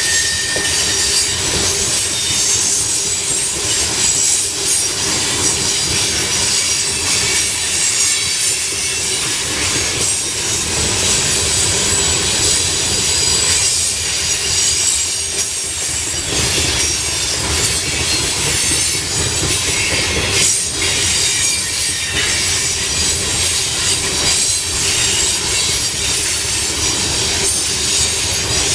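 TopGon coal cars of a freight train rolling past: a steady rumble of steel wheels on the rails, with a thin, high-pitched wheel squeal running over it.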